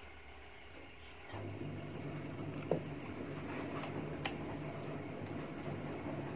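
A couple of sharp metallic clicks as the brass welding-torch body is handled, the louder one about two and a half seconds in, over a steady low hum that drops away in the first second and then comes back.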